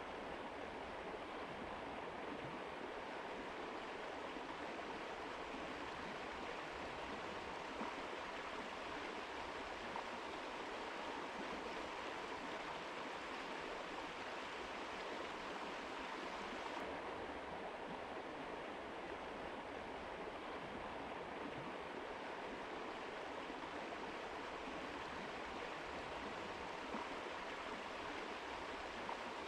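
Mountain river flowing: a steady, even rush of water. Its upper hiss softens slightly just past halfway.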